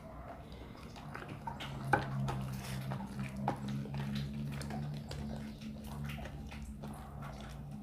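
Homemade slime being kneaded and stretched by hand while it is activated, giving irregular sticky squelches and little clicks, over a low steady hum.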